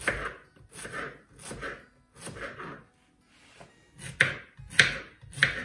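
Kitchen knife slicing a courgette (zucchini) into rounds on a plastic cutting board: about ten even cuts, roughly one every half second, with a short pause near the middle and the last three cuts louder.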